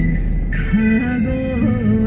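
Old Korean trot song playing: a sung melody line held and bent over instrumental backing.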